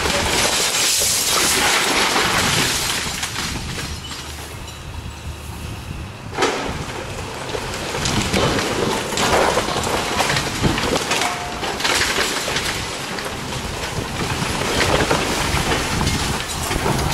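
Excavator demolishing a brick building: rumbling crashes and knocks of brick and masonry breaking and falling, with a sudden loud crash about six seconds in, over a steady rushing noise.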